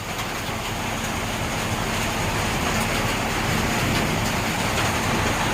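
Heavy rain pouring down: a steady, dense hiss that grows slightly louder over the first couple of seconds.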